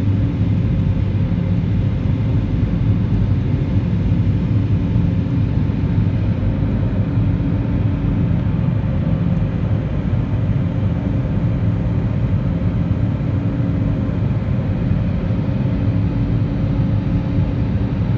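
Airbus A320neo jet engines at climb power heard from inside the cabin: a steady low rumble with a few steady droning tones over it.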